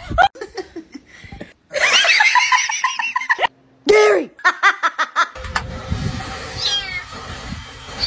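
A person laughing hard in quick, evenly repeated bursts, then more short laughter. Near the end, a low rumble with a few short high falling squeaks over it.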